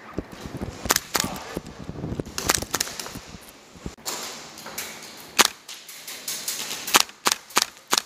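Airsoft gunfire: a string of sharp single shots at irregular intervals, the loudest about five seconds in.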